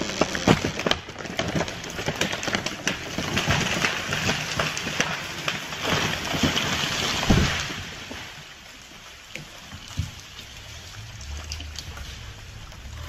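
A large tree giving way and falling: wood cracking and splitting at the cut, then several seconds of branches crashing through the surrounding canopy, ending in a heavy thump about seven seconds in.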